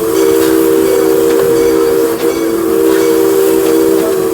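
Steam locomotive's chime whistle held in one long, steady multi-note blast, over the hiss of steam.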